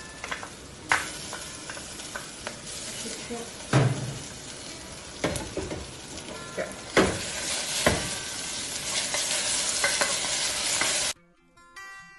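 Onions and ginger-garlic paste sizzling in oil in a pressure cooker as a wooden spatula stirs them, scraping and knocking against the pot, with several louder knocks. About a second before the end it cuts abruptly to acoustic guitar music.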